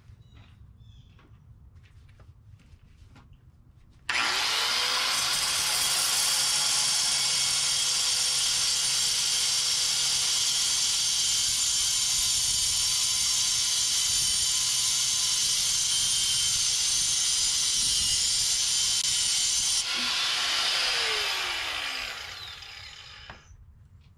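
Handheld high-speed power tool spinning up about four seconds in, running steadily at a high-pitched whine for about sixteen seconds, then spinning down over three or four seconds. It is being used to clearance metal under a 1974 Volkswagen Beetle so that the clutch cable no longer hits the firewall.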